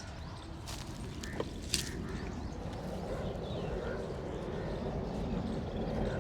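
Barber's hands rubbing and massaging a customer's back, a continuous rustling rub that grows gradually louder, with a couple of sharp clicks in the first two seconds.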